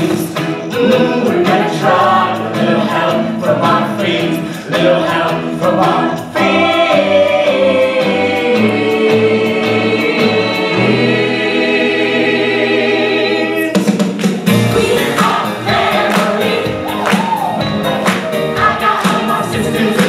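Group singing with musical accompaniment. A long chord is held from about six seconds to about fourteen seconds, then the music picks up again with a steady beat.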